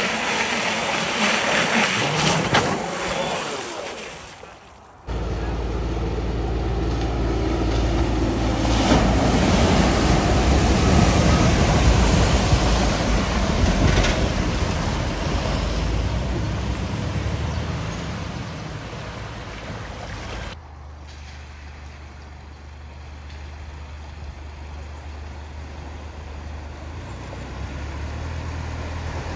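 Motor vehicles driving through deep floodwater at a ford: a steady low engine note under the rush and splash of water pushed aside, loudest partway through. The sound changes abruptly twice between clips, ending on a quieter engine hum.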